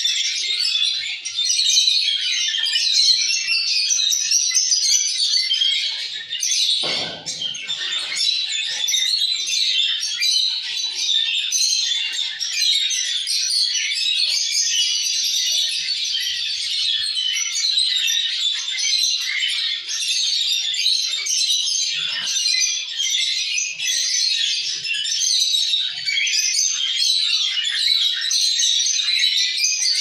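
Many small caged birds, rosy-faced lovebirds among them, chirping and chattering continuously in a dense, high-pitched chorus. A brief low rustle or bump sounds about seven seconds in.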